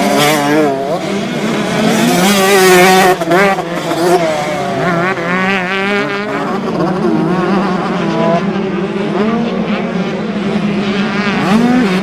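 Several 125 cc two-stroke motocross bike engines revving hard, their pitch rising and falling as the bikes race over the dirt track. The loudest pass comes about three seconds in.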